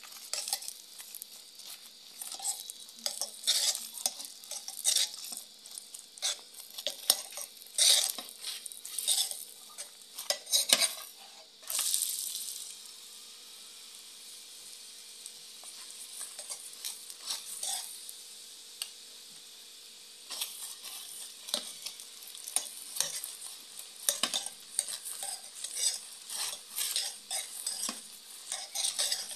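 Chapati frying in oil in a non-stick pan, with a metal spoon scraping and tapping as it spreads the oil over the flatbread. About twelve seconds in, a louder sizzle starts as fresh oil meets the hot pan, then fades to a quieter hiss before the scraping picks up again.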